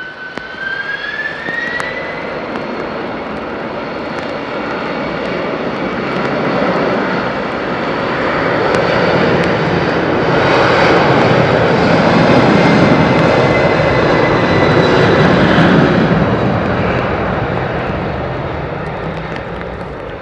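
ANA twin-engine jet airliner's engines: a high whine climbs in pitch over the first two seconds, then the jet roar builds, peaks about halfway through and slowly fades as the aircraft passes.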